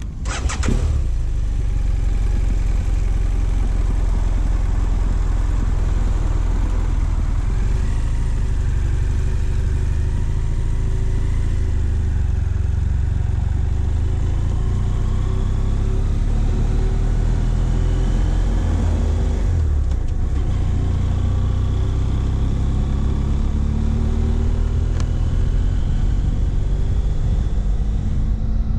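BMW F700GS parallel-twin engine pulling on the road, its pitch rising as it accelerates, with a brief dip about two-thirds of the way in and a steady heavy rumble underneath.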